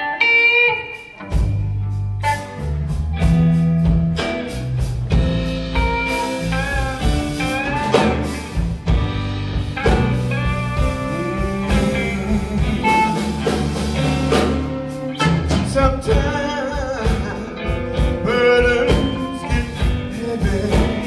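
Live gospel band playing between sung lines: electric guitar over a drum kit, with a low bass line and the drums coming in about a second in.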